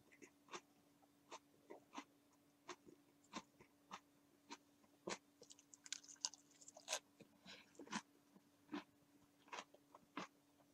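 Someone chewing a bite of panko-breaded fried chicken cutlet: sharp, irregular crunches of the crisp crust, one or two a second, coming thicker about six seconds in.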